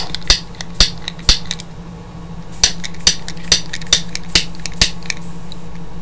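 A broken Ronson Jetlight butane torch lighter being sparked over and over: about ten sharp clicks of its ignition, then a faint hiss of escaping gas near the end. The gas is coming out but the lighter won't light.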